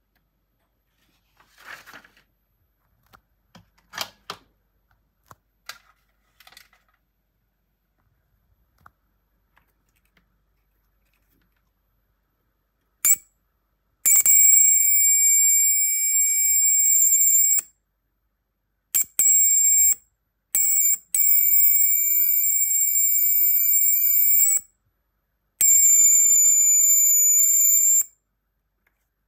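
Flyback-transformer high-voltage generator drawing an arc between two wire ends: a loud, steady, high-pitched whine that switches on and off in about half a dozen bursts over the second half, the longest a few seconds each. A few faint handling clicks come before it.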